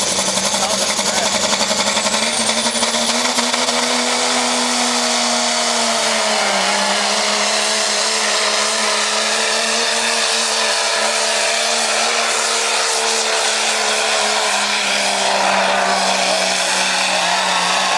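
Cummins turbo-diesel in a 1999 Ford pickup running hard at high revs under load during a truck pull, a steady loud drone with a high turbo whistle. The pitch climbs slightly a couple of seconds in, dips about six and a half seconds in, then holds.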